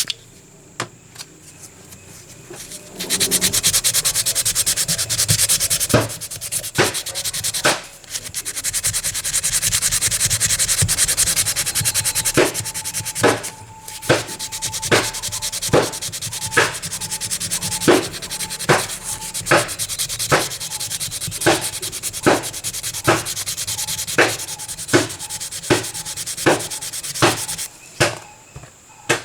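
Hand sanding on a metal toy car part, a dense scraping hiss that starts about three seconds in. Over the second half it falls into even back-and-forth strokes, roughly three every two seconds, and it stops just before the end.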